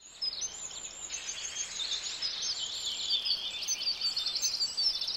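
Several small birds chirping and singing at once, with overlapping quick, sweeping calls and a fast trill about four seconds in.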